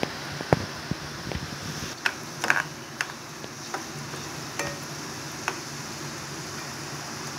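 Strands of gram-flour sev frying in hot oil with a steady sizzle, with a dozen or so sharp clicks and scrapes of a metal ladle and spatula against the pan as the strands are stirred, most of them in the first six seconds.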